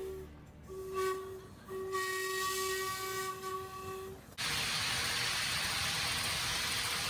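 HO model locomotive's train whistle sounded in a run of blasts, one steady pitch, the last few strung close together. About four seconds in it cuts off abruptly and a steady loud hiss takes over.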